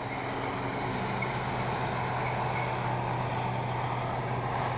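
Electric motor and propeller of an E-flite Piper Cherokee RC plane in flight, climbing out just after takeoff: a steady buzz with a constant low hum that grows slightly louder.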